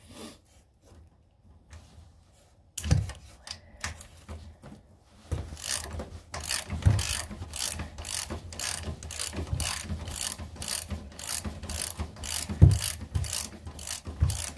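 Ratchet wrench clicking as it turns a bolt into an unthreaded engine mounting hole, cutting threads into it. After a quiet start and a single knock, the clicks settle into a steady rhythm of about two to three a second.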